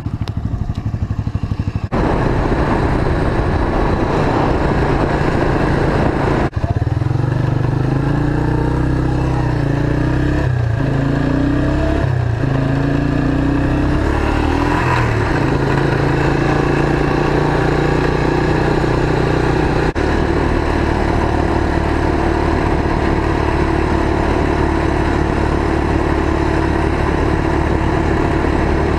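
Motorcycle trike engine running while being ridden, under a steady rush of noise. Its pitch rises and falls several times in the middle, then settles to a steady lower note, and the sound changes abruptly a couple of times.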